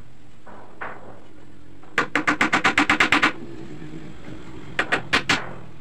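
Hammer tapping small nails into a wooden brace inside a plywood boat hull. A quick run of rapid taps, about ten a second, starts about two seconds in and lasts just over a second, and four more taps come near the end.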